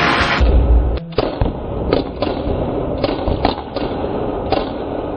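A series of sharp knocks, about eight of them at irregular spacing.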